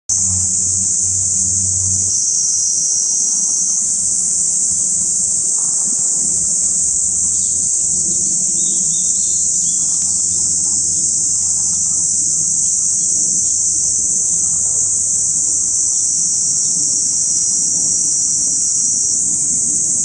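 Summer cicada chorus: a loud, steady high-pitched drone with no breaks, over a low hum.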